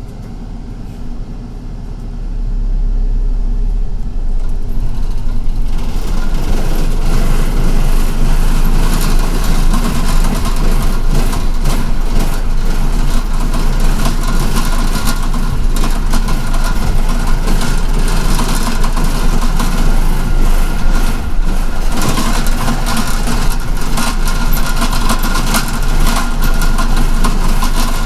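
City bus engine and road noise heard from inside the cabin, growing much louder two to three seconds in as the bus gets under way, then running steadily with many short clicks and rattles.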